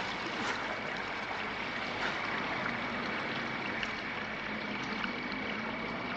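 Water running steadily from a stone fountain's spout into its basin, an even trickling splash.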